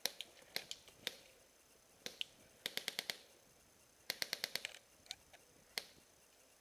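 Airsoft electric guns firing single shots and two short full-auto bursts of about six rounds each, sharp snapping clicks, with scattered single shots between them.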